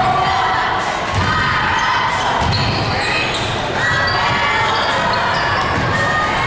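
Basketball game in an echoing gym: the ball bouncing on the hardwood court and sneakers on the floor, with shouting and chanting voices from players and cheerleaders.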